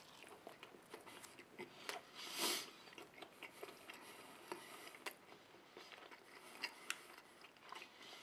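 A person chewing a mouthful of soft cheeseburger: faint, irregular wet clicks and smacks of the mouth, with one short breathy hiss about two and a half seconds in.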